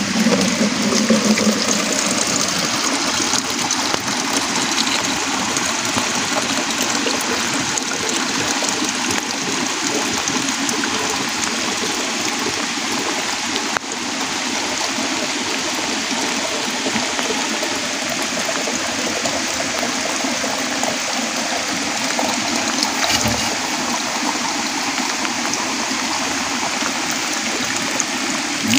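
Water pouring steadily from a wooden spout into a plastic jar and splashing onto the wet ground, a continuous rushing splash.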